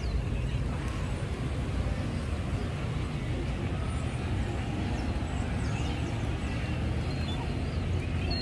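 City-square ambience: a steady rumble of traffic with a murmur of people, and a few faint high bird chirps.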